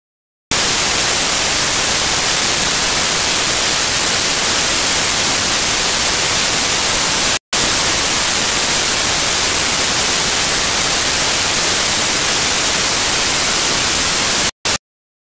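Loud, steady white-noise hiss like static, starting suddenly about half a second in. It drops out for a split second near the middle, stops abruptly near the end and returns for one short blip.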